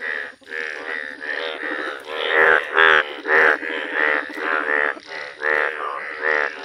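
A chorus of male Indian bullfrogs calling, with short, pitched croaks repeating about twice a second and overlapping one another. These are breeding calls: the males are in their yellow mating colour, clasping females, with blue vocal sacs inflating.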